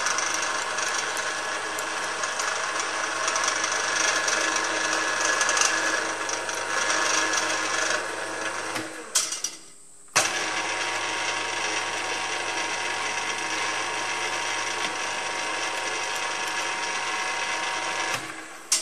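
Drill press motor and gearing running steadily, power-driving a bottoming tap into a 6 mm hole. The machine stops about halfway through, runs again for about eight seconds while the tap comes back out, and cuts off with a click near the end.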